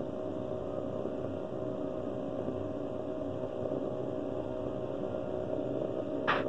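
Steady low hum, with a few sharp clicks near the end.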